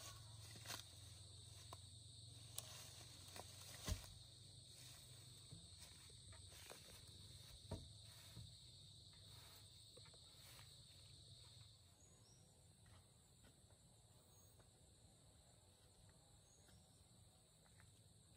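Faint outdoor ambience: a steady high insect drone that stops about twelve seconds in, with scattered light knocks and rustles as a long bamboo pole is handled and set on a log. The loudest knock comes about four seconds in.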